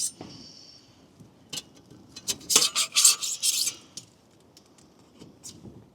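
Metal panels of a small Daiso mini fire pit clinking and scraping as they are fitted together, with a sharp clink at the start that rings briefly, then a quick flurry of clinks and scrapes about two to four seconds in and a few lighter taps near the end.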